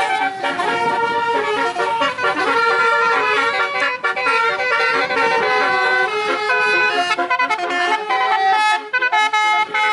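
Telolet horn, a multi-tone vehicle horn, playing a tune of held notes that step from pitch to pitch, with short breaks about four seconds in and near the end.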